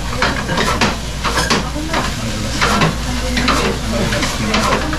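Rice frying and sizzling in a frying pan while a metal utensil stirs it, scraping and clinking against the pan at an irregular beat, a few times a second.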